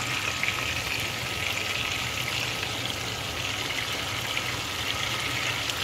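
Whole sardines frying in hot oil in a non-stick frying pan: a steady crackling sizzle with scattered small pops.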